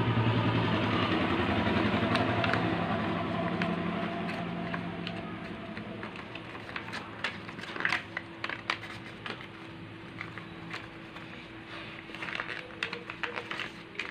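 A motor vehicle's engine hums steadily at the start and fades away over about six seconds. After that, paper rustles and crinkles in short sharp bursts as it is creased and folded by hand.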